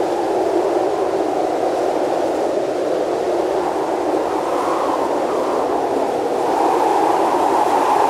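Steady rushing noise of blizzard wind, a little louder in the last second or so.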